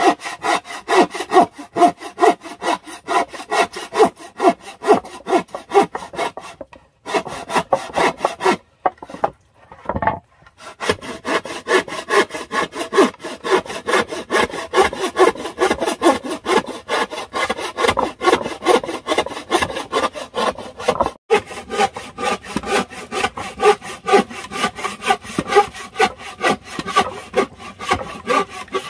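Wooden frame saw cutting through a wooden board by hand, with steady back-and-forth strokes about two to three a second. There are a couple of short pauses about a quarter to a third of the way in.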